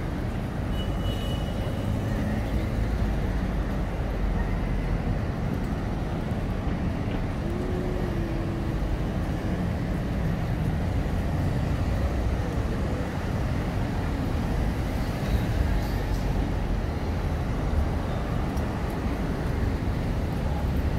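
Busy city street traffic: car engines running as vehicles move slowly along the road, a steady low rumble.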